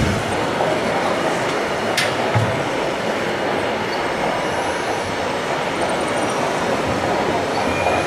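Steady, even din of a busy exhibition hall, with a single sharp click about two seconds in.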